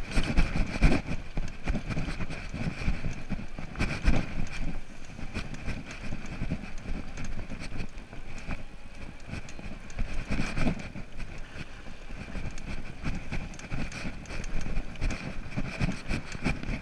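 Juiced RipCurrent electric fat-tyre bike ridden fast over a bumpy dirt trail: a steady rumble from the tyres, with many knocks and rattles from the frame and suspension and a few louder jolts, wind noise on the microphone, and a steady high whine throughout.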